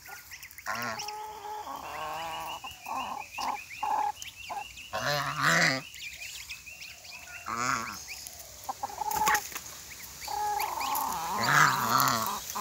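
Domestic geese calling repeatedly with short nasal honks, over the high peeping of their goslings. The loudest call comes near the end.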